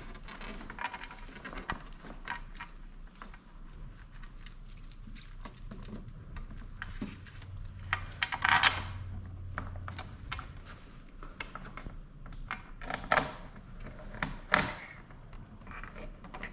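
Scattered small clicks and taps of hands handling a composite spoiler winglet against the car's spoiler and starting its screws by hand, with a few louder knocks around the middle and near the end.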